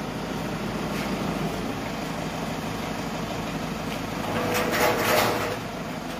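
Toyota HiAce van idling with its air conditioning running: a steady hum, with a brief louder swell of noise about five seconds in.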